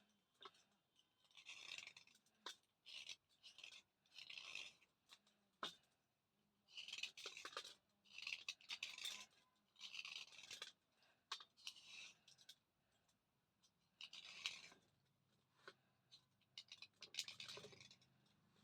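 Chandni brand thick slate pencils being rubbed clean dry: a run of faint, short scratchy strokes about one a second, with an occasional sharp click.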